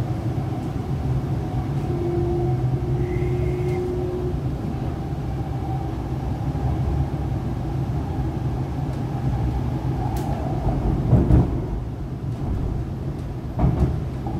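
Interior of an MTR East Rail line R-Train electric multiple unit running at speed: a steady rumble of wheels on rail. A brief steady whine sounds from about two to four seconds in, and two louder clunks come near the end.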